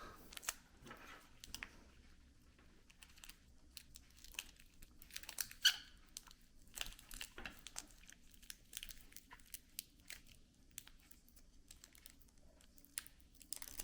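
Faint, scattered crinkling and rustling of plastic wrapping material being handled and wound around a battery pack, with small clicks throughout and one louder crackle a little past the middle.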